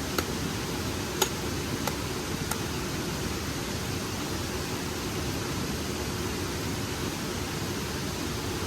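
Steady rush of flowing stream water, with four sharp clicks in the first few seconds, the loudest about a second in.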